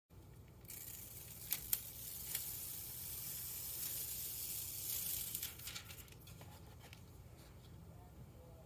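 Thin red metallic transfer foil being peeled off a printed paper sheet: a continuous high, crackling hiss with a couple of sharp snaps about a second and a half in. It eases off after about five seconds into quieter rustling of paper being handled.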